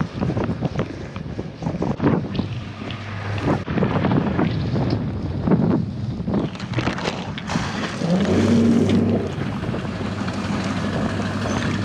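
Wind buffeting the microphone over the steady low hum of outboard motors on bass boats.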